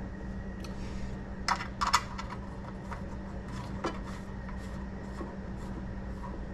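Small metal hardware and tools being handled: a few sharp clinks, two close together about one and a half seconds in and a fainter one near four seconds, over a steady low hum.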